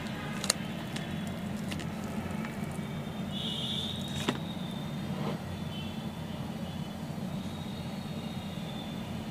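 Steady low mechanical hum, like a motor or engine running, with a couple of sharp clicks, one about half a second in and another past four seconds.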